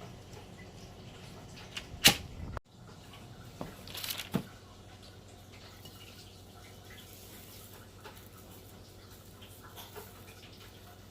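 Kitchen handling noises: one sharp knock about two seconds in, a few softer knocks around four seconds, then low steady room noise.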